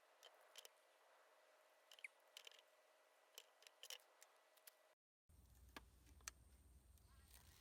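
Faint scattered clicks and light handling noises over a quiet background, with a brief dropout about five seconds in, after which a low rumble joins the clicks.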